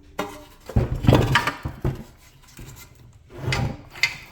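Loose steel brake hardware being handled and dropped: several knocks and rattles, the biggest cluster about a second in and smaller ones near the end.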